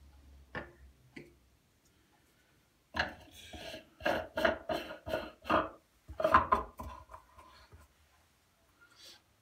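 A run of hard knocks and clatter, about three a second for roughly four seconds, from a coffee container and espresso-machine parts being handled. A couple of light clicks come just before.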